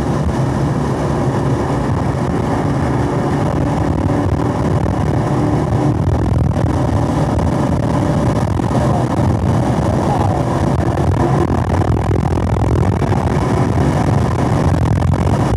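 Chevrolet Camaro SS 1LE's 6.2-litre V8 pulling under full load in fourth gear, heard inside the cabin, its note climbing slowly as the revs rise from about 4,000 to nearly 6,000 rpm.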